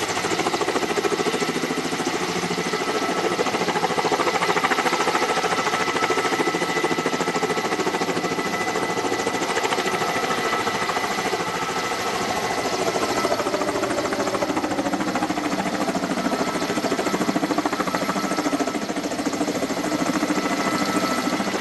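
Kamov Ka-32A11BC coaxial-rotor helicopter hovering: fast rotor chop under a steady high turbine whine from its twin turboshaft engines. Partway through, a lower engine tone glides steadily down in pitch as the helicopter moves off.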